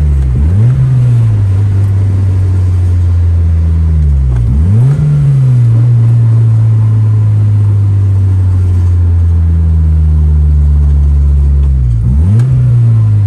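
Car engine and exhaust running loud under load while driving, heard from inside the car. Its note holds steady between three quick gear changes, each a brief drop and climb in pitch, about half a second in, after about four and a half seconds and near the end.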